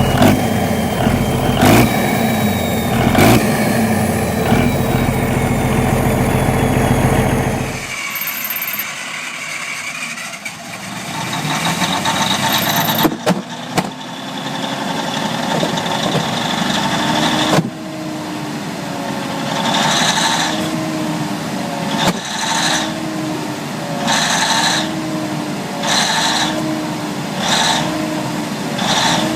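A large engine running with a steady heavy beat and a few sharp knocks. About a quarter of the way in it cuts to a different, slow-running old engine, whose beat comes about once every second and a half, each one with a short hiss and a brief rising-and-falling whine.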